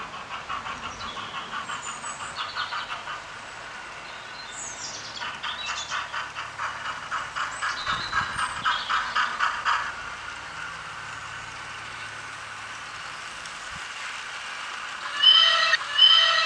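Sound of a 00-scale model steam locomotive running on a garden layout: a rhythmic chuffing beat of about five a second in two stretches, with birds chirping, then two short whistle toots near the end, the loudest part.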